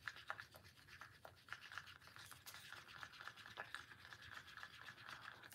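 Faint, irregular scraping with light clicks from a stir stick in a mixing cup as thick pigment is stirred into epoxy resin.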